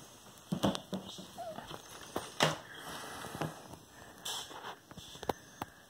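Handling noise: scattered light clicks and short rustles, the loudest click about two and a half seconds in.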